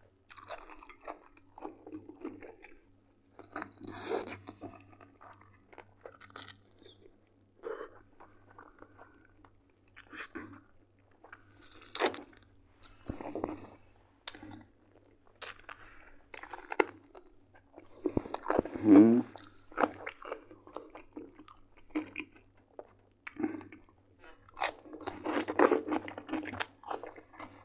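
Close-miked chewing of oven-roasted chicken drumsticks: irregular wet mouth clicks and crunches as the meat and gristle are bitten and chewed. A louder, brief mouth sound with a wavering pitch comes about two-thirds of the way through.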